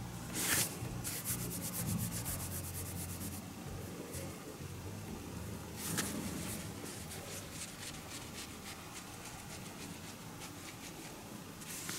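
Close rubbing and scratching noises of fur, cloth and tatami being handled, with a quick run of small rasps about a second in and another, fainter run after the middle.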